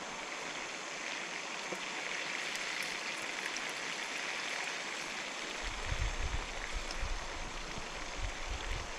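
Steady rush of flowing river water. From about six seconds in, irregular low bumps and rumbles are added.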